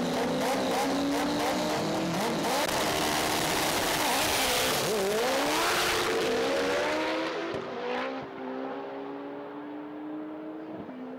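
Two drag cars, a Honda Civic hatchback and a Ford Mustang, crackling at high revs on the start line, then launching and accelerating hard. Their engine notes rise, drop at a gear change, and fade away down the track.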